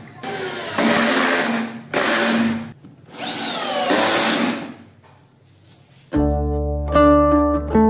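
Cordless drill driver running in four short bursts, driving screws through a table leg's metal mounting plate into plywood. About six seconds in, plucked acoustic guitar music begins.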